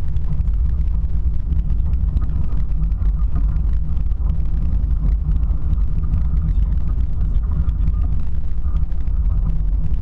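A motor vehicle driving, heard as a steady low rumble of engine and road noise with no change in pace.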